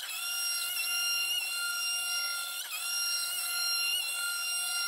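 NymoLabs NBX-5040 CNC router spindle running at about 14,000 RPM while cutting around a wooden panel, giving a steady high whine with several overtones. Its pitch sags briefly at the start and again a little past halfway as the bit takes load.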